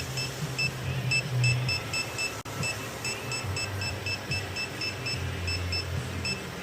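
Electronic refrigerant leak detector beeping in a rapid, slightly uneven run of short high beeps, about three or four a second, as it is swept around the A/C system in search of a refrigerant leak. Background music with low bass notes plays under it.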